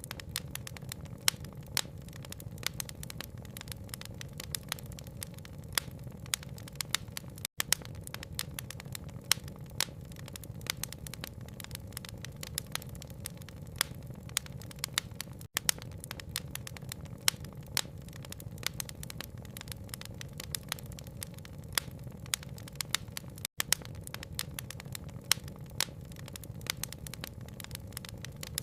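Wood fire crackling, many sharp pops and snaps over a steady low rumble, with a brief dropout about every eight seconds.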